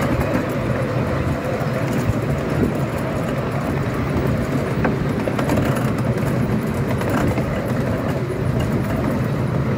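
Miniature railway train running along the track, a steady rumble of wheels on rails with faint clicks and rattles from the carriage.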